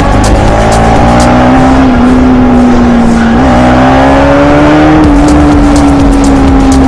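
Bajaj Pulsar NS 200 single-cylinder engine running under way at fairly steady revs, its pitch rising and dipping slightly, over a low rush of wind and road noise.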